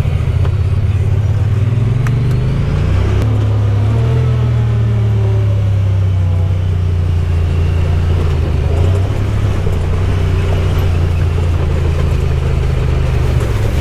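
Side-by-side UTV engine running under way, a steady low drone that steps up in pitch about three seconds in and drops back near nine seconds as the speed changes.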